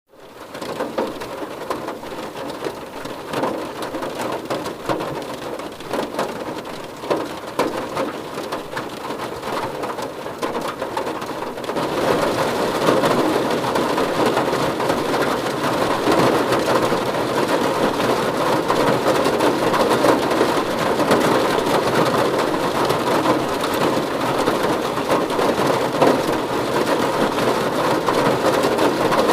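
Rain falling on a car's roof and windows, heard from inside the car: a dense patter of drops that fades in at the start and grows heavier about twelve seconds in.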